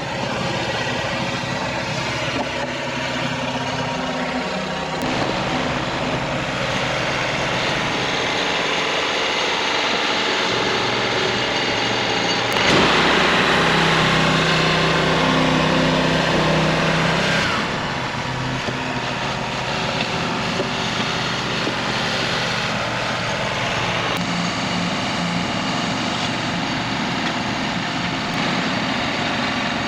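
Gasoline engine of a Harbor Freight band sawmill running steadily, growing louder and harsher for about five seconds in the middle.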